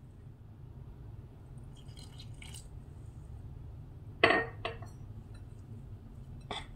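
Metal spoon stirring flour in a glass mixing bowl: faint scraping, then sharp clinks as the spoon strikes the glass, the loudest about four seconds in with a smaller one just after and another near the end.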